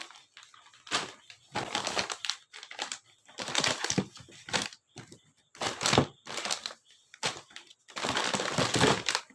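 Plastic packaging crinkling and rustling in irregular bursts as it is handled, with short pauses between.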